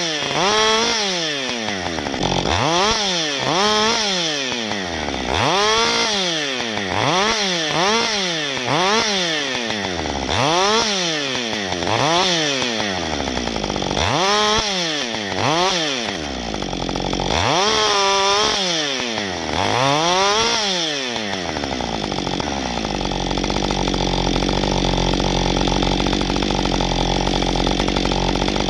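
Husqvarna 55 XP two-stroke chainsaw revved up and down over and over while trimming brush and small branches. About 22 seconds in it drops to a steady idle.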